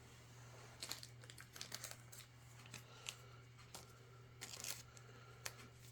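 Faint rustling and crinkling of trading cards and plastic card sleeves being handled, a few short scrapes scattered through, over a steady low hum.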